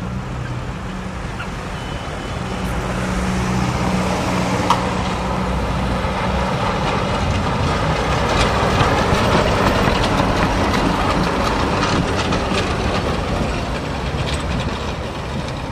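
Ex-Dresden Tatra T4D tram running along street track, its wheels and motors swelling as it passes about halfway through and then easing off as it moves away, mixed with passing road traffic. One sharp click comes a few seconds in.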